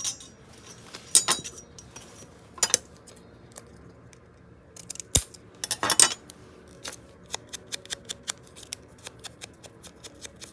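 Small paper piece being handled, with a few short rustles, then from about seven seconds in a run of quick light taps, three or four a second, as a round foam ink blending tool is dabbed along the paper's edge.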